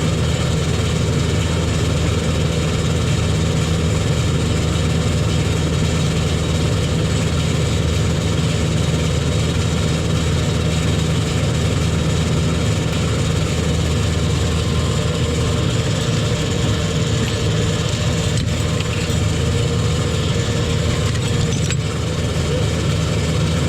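LS tractor's diesel engine running steadily at an even speed, with a strong low hum.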